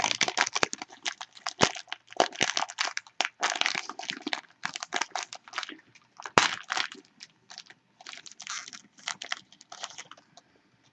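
Trading card packaging and cards crinkling and rustling as they are handled, in a rapid irregular run of crackles that thins out and gets quieter over the last few seconds.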